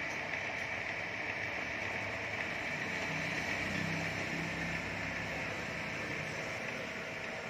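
Bench lathe running steadily, turning a white plastic rod, with an even whir and no breaks.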